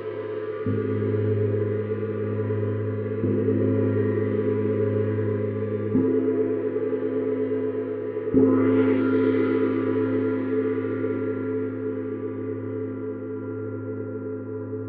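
Neptune planet gong struck softly four times, about every two to three seconds, over its own steady low ringing hum. The fourth stroke, a little past halfway, is the loudest and brings up a brighter shimmer that slowly fades.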